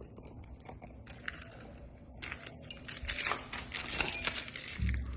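Metal keys jangling with small clicks, the sound of a key ring and lock being handled while a Kwikset SmartKey lock is rekeyed. A dull thump comes near the end.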